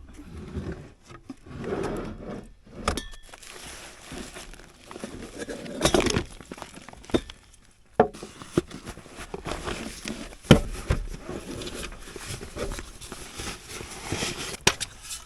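Camp cooking gear and food packaging being handled: scattered clinks and knocks with crinkling and rustling, and a brief quiet gap partway through.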